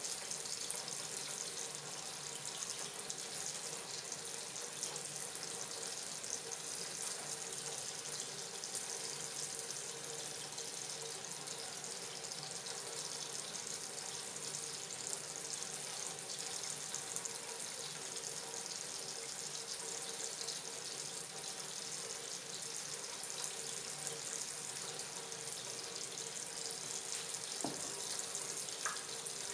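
Kitchen tap running steadily into a stainless steel sink that is already full of water, a constant splashing hiss.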